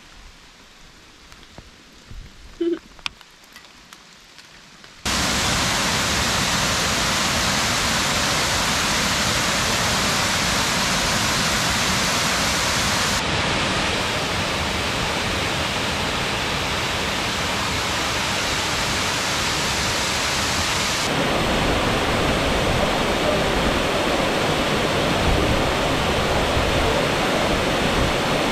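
Steady loud rush of flowing water, in a few cut-together stretches, after a quiet few seconds that hold a single short, sharp sound just under three seconds in.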